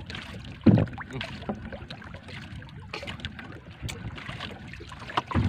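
Water lapping and slapping irregularly against a small boat's hull, with wind on the microphone and one dull thump under a second in.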